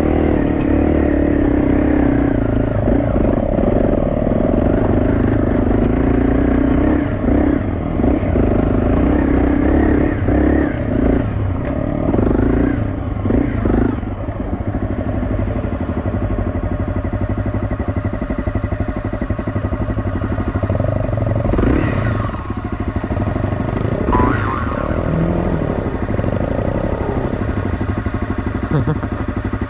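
Off-road dirt bike engine running at low revs, with the revs rising and falling with the throttle over a rough trail. The engine note eases off about 14 seconds in.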